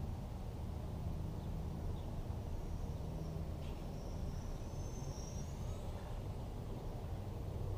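Faint, steady buzz of a very quiet 3-inch toothpick FPV quadcopter in flight, heard from the ground under a low outdoor background noise.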